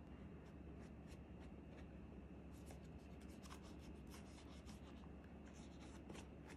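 Faint scratchy strokes of a paintbrush daubing brown paint onto a newspaper-covered volcano model, in clusters of short scrapes from about the middle on, over near-silent room tone.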